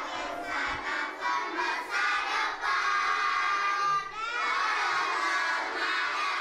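A crowd of children shouting together, many voices at once, with a rising shout about four seconds in.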